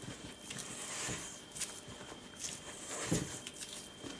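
Spatula folding ground almonds and icing sugar into whipped egg-white meringue in a bowl: soft, irregular scraping strokes.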